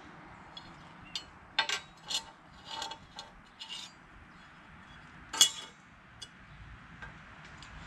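A speed square and marking tools clinking and scraping on a 5/8-inch steel plate while a square is laid out on it: a handful of short clinks and scrapes, with the loudest knock about five and a half seconds in.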